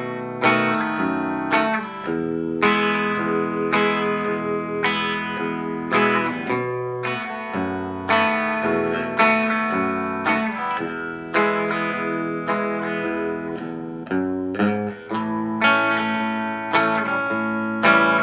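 Electric guitar, a Telecaster with Gotoh titanium compensated saddles, played through a 5F1 Champ clone amp with a 12-inch Jupiter ceramic speaker. Chords are struck and let ring, a new one about once a second. This is the tone of the titanium saddles before a swap to brass.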